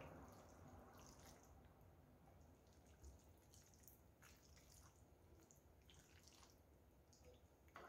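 Near silence, with faint, scattered soft squelches and ticks of a silicone spatula stirring creamy pasta in a nonstick pan.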